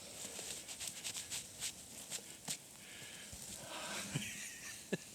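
Faint rustling and scattered light clicks, with one sharper click near the end.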